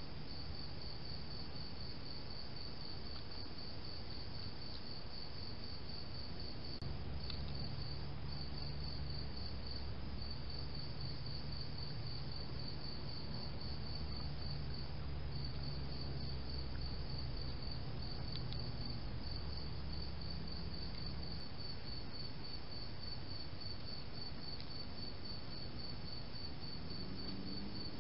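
Crickets chirping in an even, rapid train of short high chirps, about five a second, pausing only briefly now and then, over a steady hiss. A low hum joins in about seven seconds in and stops about twenty-one seconds in.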